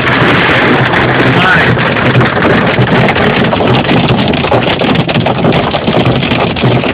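Hail pelting a vehicle's roof and windshield, a loud, dense rattle of countless small impacts, heard from inside the cabin.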